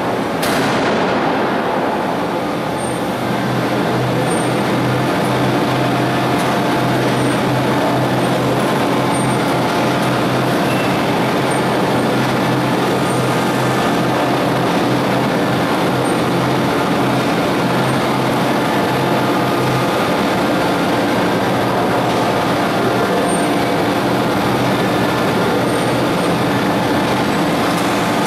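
A hydraulic open-die forging hammer strikes once about half a second in, then a steady loud machine running noise carries on, with a low hum through much of it.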